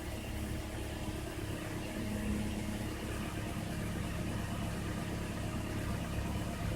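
2011 Toyota Corolla's four-cylinder engine idling steadily as it warms up.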